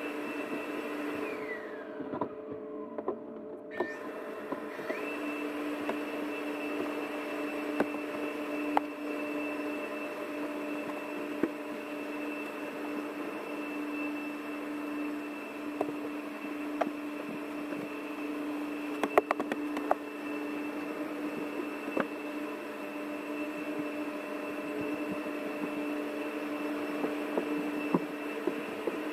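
Pressure washer spraying the car, heard muffled from inside the cabin: a steady motor whine over the hiss of the spray. About a second in the spray stops and the whine winds down, then the spray starts again and the whine climbs back up about five seconds in, with scattered sharp taps of water on the body.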